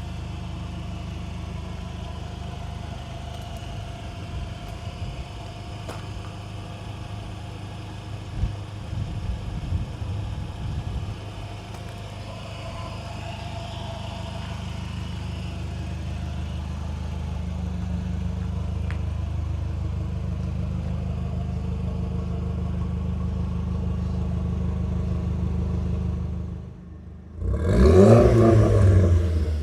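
Mk4 Golf GTI's swapped-in BAM 1.8-litre turbocharged four-cylinder running steadily at low revs, with a few clattering knocks early on. Near the end it drops off briefly, then revs hard and loud with rising pitch under acceleration.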